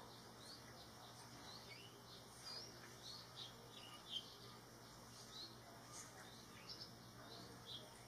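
Faint, short, high-pitched bird chirps, repeated irregularly a few times a second, with a louder one about four seconds in, over a faint steady low hum.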